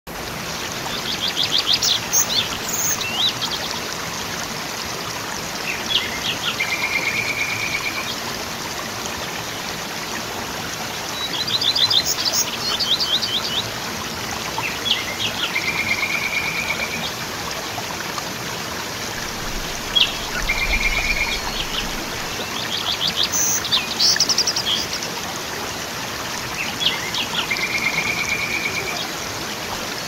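Steady rush of a waterfall, with birds singing over it: several times a quick run of high chirps, and in between short held whistles.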